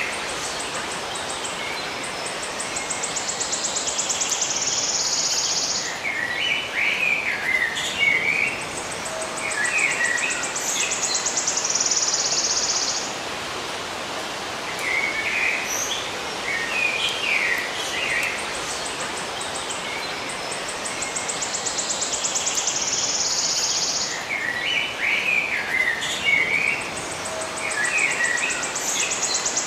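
Songbirds chirping in short clusters, with a high, fast, buzzing trill of four to five seconds that recurs four times, over a steady hiss.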